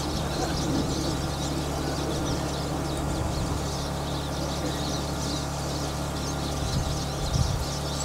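Pine siskins twittering, a steady stream of short high chirps, over a steady low hum.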